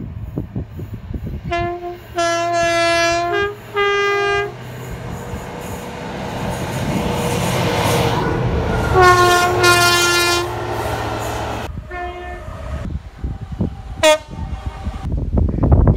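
British train's two-tone air horn sounding several times: a long low note followed by a slightly higher one, then another long blast, with short toots near the end. Under the horn, the rushing and rumbling of the train grows louder toward the middle and then falls away.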